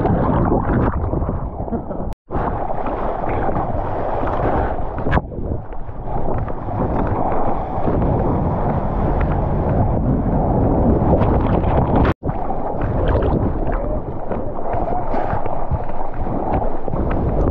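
Surf water rushing and sloshing right against a mouth-mounted GoPro as it goes under and comes up through breaking waves, a dense muffled wash. It cuts out suddenly twice, about two and twelve seconds in.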